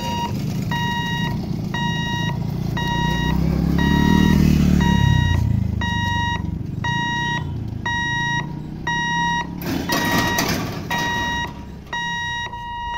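Railway level-crossing warning hooter beeping about twice a second as the boom barriers close, warning that a train is approaching. Under the beeps a motorcycle engine passes close by, loudest about four seconds in.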